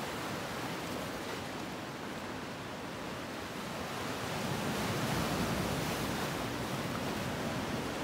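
Rough sea surf rushing and breaking over rocks, a steady wash of water that swells louder about halfway through.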